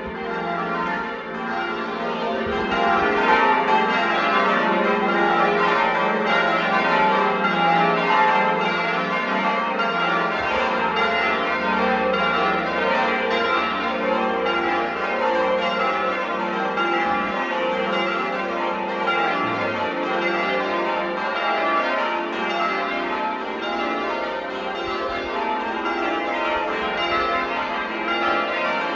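Several church bells ringing in a steady, unbroken sequence of strokes: the Sunday morning call to church.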